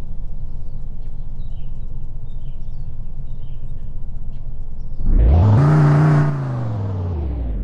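Subaru Impreza engine sound from an RC car's sound module: a low idle rumble, then about five seconds in a quick rev that rises, holds for about a second and falls back toward idle.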